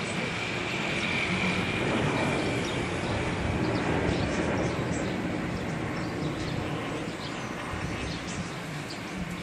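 Steady rushing rumble of a passing vehicle, swelling slightly a couple of seconds in and easing off toward the end.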